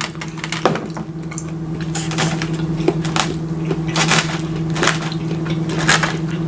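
Close-miked chewing of a mouthful of steamed cabbage: irregular crunching and wet mouth sounds, with a plastic fork scraping in a foam takeout box. A steady low hum runs underneath.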